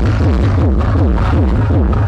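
Electronic dance music played loud through a large outdoor sound system of stacked subwoofers, with a heavy, steady sub-bass and a synth line that sweeps up and down in pitch several times a second.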